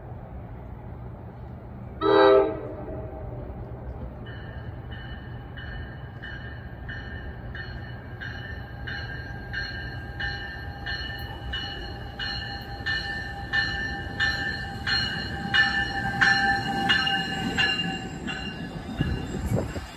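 NJ Transit train led by an ALP-45 locomotive sounds one short horn blast about two seconds in. An evenly repeating bell starts about two seconds later and rings on, while the train's rumble builds as it approaches and its passenger cars pass near the end.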